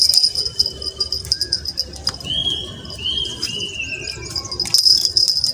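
A steady, high insect drone from crickets, with a bird giving three short, arching whistled calls in quick succession about two seconds in.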